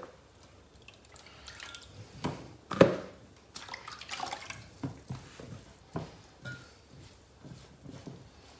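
Floured chicken wings being dipped by hand into a steel bowl of water and pressed into flour: scattered drips and small splashes with soft squishing and patting, the sharpest splash about three seconds in.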